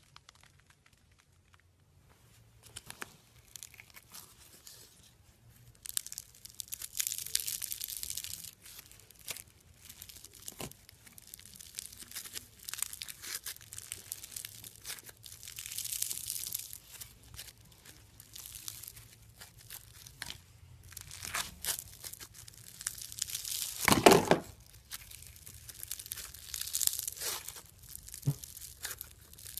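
Crunchy bead-filled slime squeezed, folded and pressed between fingers, crackling and popping in irregular bursts as the tiny beads crush and shift. One crackle about three-quarters of the way through is louder than the rest.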